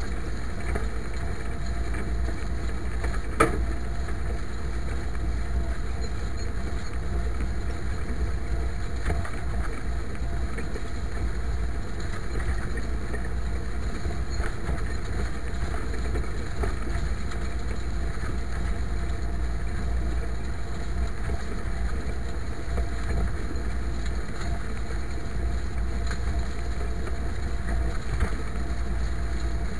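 IMT 539 tractor's three-cylinder diesel engine running steadily under load, pulling a harrow. A single sharp click about three seconds in.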